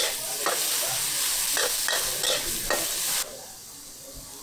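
Food sizzling as it is stir-fried in a wok, with a metal spatula knocking and scraping against the pan several times. The loud sizzle cuts off suddenly about three seconds in, leaving a quieter hiss.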